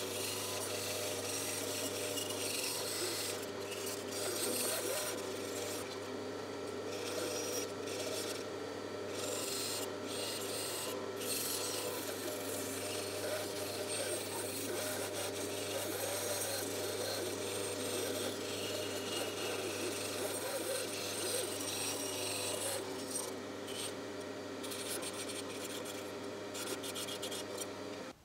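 Benchtop bandsaw running with its blade cutting through a thick wooden block: a steady motor hum under a rough, rasping cutting noise that eases off briefly now and then as the block is fed and turned.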